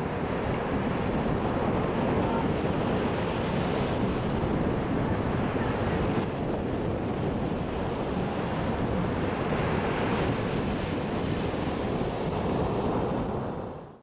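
Baltic Sea surf breaking and washing up a sandy beach: a steady rushing of waves and foam that fades out near the end.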